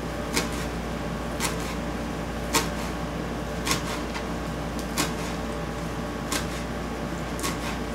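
Chef's knife chopping fresh basil leaves on a cutting board: a short knock of the blade on the board about once a second, about seven in all, over a steady low hum.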